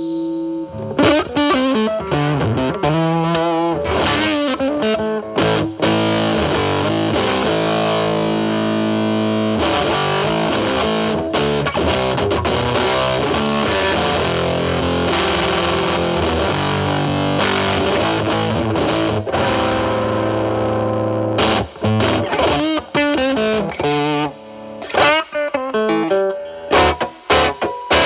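Telecaster electric guitar played through a ZVEX Fuzz Factory Vexter fuzz pedal into a Marshall Valvestate amp's drive channel: a thick, distorted fuzz tone. It starts about a second in, holds long notes and chords through the middle, and turns to short, choppy phrases with brief gaps near the end.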